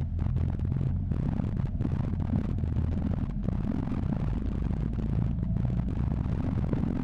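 Jeep Wrangler's engine running steadily as it drives over a rough dirt track, heard from inside the open-top cab, with crackling wind noise on the microphone.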